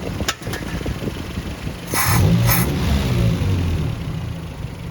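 Datsun 720's Z18 inline-four engine running smoothly on freshly fitted distributor contact points, with a few light clicks at the start. It gets louder briefly about two seconds in, as if revved.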